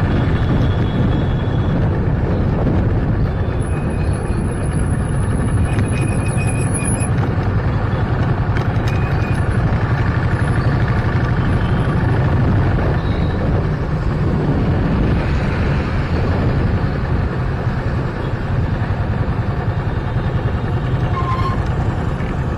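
Steady low rumble of wind buffeting an action camera's built-in microphone on a moving two-wheeler, mixed with road and traffic noise. About four seconds in, a faint high whistle lasts a few seconds.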